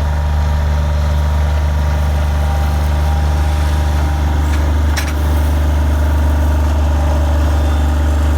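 Engine of a machine moving and dumping backfill soil, running steadily at an even speed, with a sharp knock about five seconds in.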